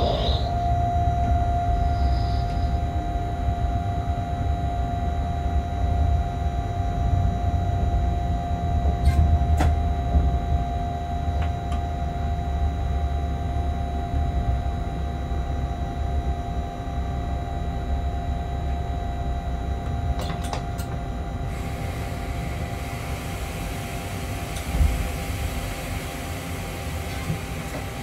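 Freight train heard from inside the locomotive cab while running: a steady low rumble with a constant hum and a few sharp clicks. A steady hiss comes in suddenly about three-quarters of the way through.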